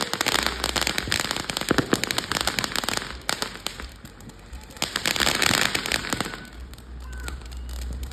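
Fireworks going off in rapid crackling pops: a dense run up to about three seconds in, a second burst around five seconds in, then thinning out.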